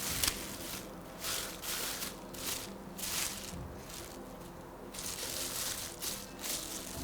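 Raw chicken breast being pounded flat into strips: repeated strikes, roughly two a second and somewhat irregular, with a short pause about two thirds of the way through.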